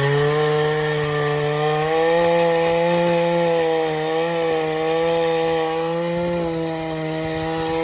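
Craftsman chainsaw with an 18-inch bar running at high revs, steadily cutting through a silver maple trunk. Its engine note holds nearly even, wavering slightly under load.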